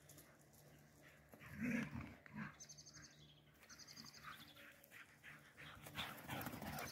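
Galgos (Spanish greyhounds) playing: a short, low dog vocal sound about a second and a half in, a smaller one just after, and light dog noises again near the end.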